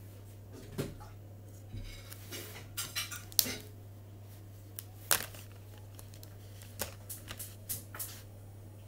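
Felt-tip markers being handled on a table: a series of sharp, separate clicks and clacks as pen barrels and caps knock together, with a cluster about three seconds in and more near the end, over a steady low hum.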